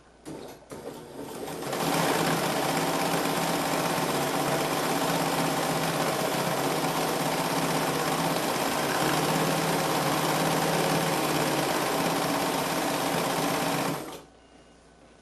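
Bernina 940 sewing machine stitching: a few slow strokes, then it speeds up to a steady run that lasts about twelve seconds and stops shortly before the end.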